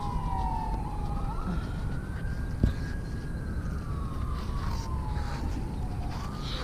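Emergency vehicle siren wailing, its pitch sliding slowly down, then climbing and falling again over a few seconds. A single sharp click about two and a half seconds in.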